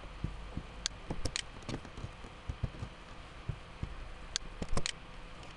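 Irregular clicks and taps of a computer keyboard and mouse, about a dozen in all, the loudest about five seconds in.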